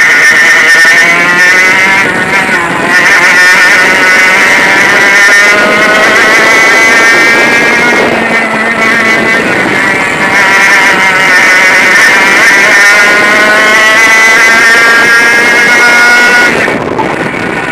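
100cc two-stroke kart engine at racing revs on track, its pitch climbing through each stretch and falling back every few seconds as the throttle is lifted for corners. It drops off sharply near the end.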